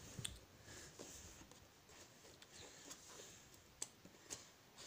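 Faint scratching, with a few short clicks spread out, as a sealed keyboard box is worked open by hand.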